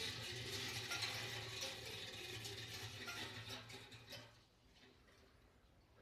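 Clockwork mechanism of an antique German tinplate Ferris wheel toy whirring and rattling as the wheel spins. It runs down and fades out about four seconds in.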